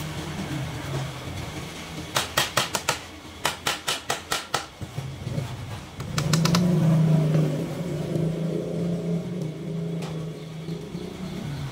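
Two quick runs of sharp knocks, about five a second, a couple of seconds in. About halfway through a low motor hum starts and runs for about five seconds, loudest as it begins.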